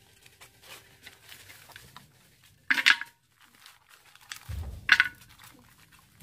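Woven bamboo basket trap being handled, its slats rattling in two short bursts, about three seconds and five seconds in.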